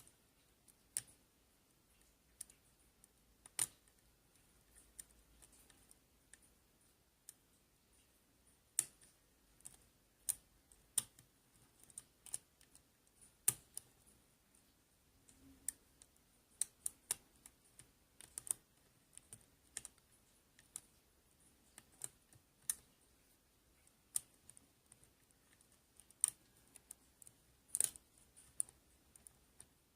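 Irregular sharp clicks of a lock pick and tension wrench single-pin picking a 5-pin Binco lock fitted with security pins, the pins clicking as they are lifted and set.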